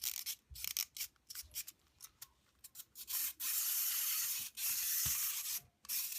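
Small clockwork wind-up toy, a purple monkey that jumps over a rope: short scratchy clicks and scrapes at first, then its spring motor runs with a steady high whirr in two stretches, starting about three seconds in and again near five seconds.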